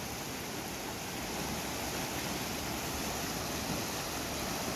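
Small mountain river rushing over rocks: a steady, even rush of flowing water.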